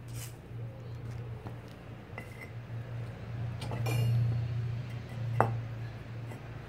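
Fire bricks being set down, clinking and knocking against one another and a hard surface, with one sharp knock about five seconds in, over a steady low hum.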